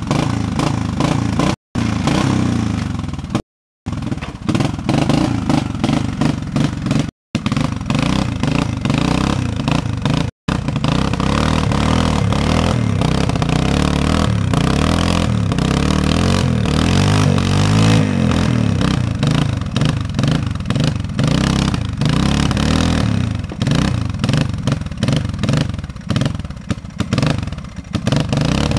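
Honda FourTrax 300 4x4 ATV's single-cylinder four-stroke engine working under load on a hill climb, revving up and down over and over as the throttle is worked. The sound cuts out completely four times in the first ten seconds.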